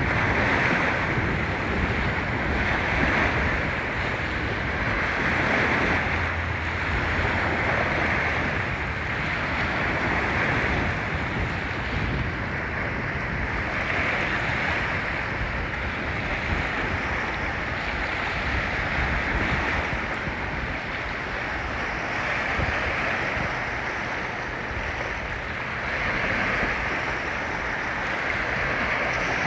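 Choppy wind-driven waves breaking and washing along the shoreline, swelling and easing every few seconds, with gusting wind rumbling on the microphone.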